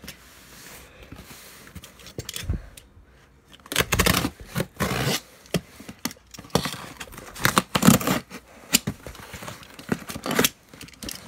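Snap-off utility knife slicing through packing tape on a cardboard box, in irregular scraping, ripping strokes of blade on tape and cardboard.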